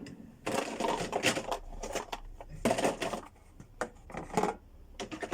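Several short bursts of clattering and crunching from objects being handled, each burst made of many quick clicks.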